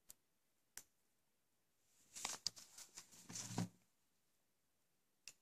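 Plastic Blu-ray case being handled on a plastic tablecloth: two light clicks, then about a second and a half of rustling and scraping with a few knocks as it is picked up and stood on its edge, and another click near the end.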